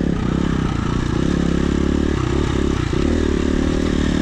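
Dirt bike engine running, its pitch rising and falling as the throttle opens and closes.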